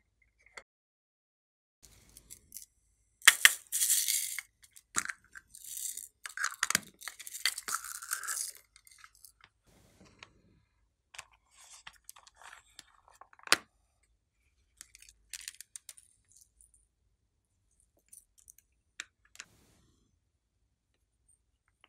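Small plastic confetti and sprinkles being shaken and poured onto slime in a tray, a dry rattling patter in two spells about three to eight seconds in, followed by scattered light ticks and clicks of pieces and containers.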